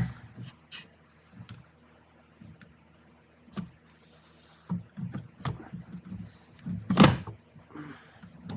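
Scattered light knocks and clicks of metal transfer-case parts being handled during assembly, with one louder knock about seven seconds in.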